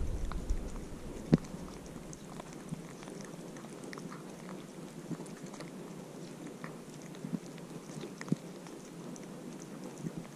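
Orange-and-white kitten chewing and licking cat food from a plate close to the microphone: scattered small wet clicks and smacks, with a sharper click about a second and a half in.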